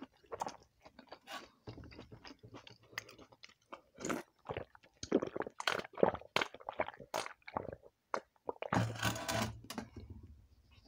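Close-miked wet chewing and slurping of pakhala bhata, rice soaked in water, eaten by hand and drunk from a steel bowl: many short smacks and mouth clicks, with a longer slurp about nine seconds in.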